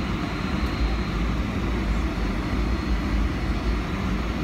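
Boeing 757-300's Rolls-Royce RB211 turbofan engines running, heard from inside the cabin as the jet rolls onto the runway: a steady deep rumble with a faint high whine.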